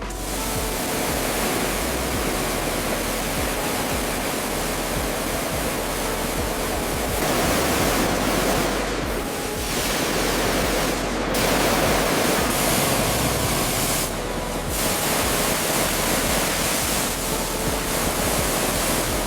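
Steady rushing hiss of a high-pressure water spray, like a pressure washer blasting moss off the aircraft's rivets and skin. It briefly thins a few times, around the middle and again later on.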